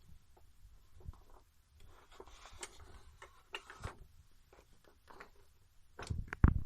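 Irregular small clicks and rustling as an Obake no Q-Taro character alarm clock is handled, with a few louder knocks about six seconds in, after which the sound cuts off suddenly.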